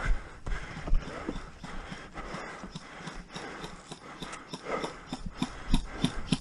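Irregular knocks and clicks of a player on the move: footsteps with gear rattling on the body-worn camera.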